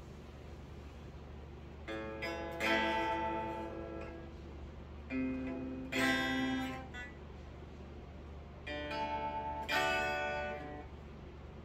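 Gretsch hollow-body electric guitar, plugged in, strummed in chords over a steady low hum. The first chords come about two seconds in, then two more pairs follow with pauses between, each chord left to ring and fade.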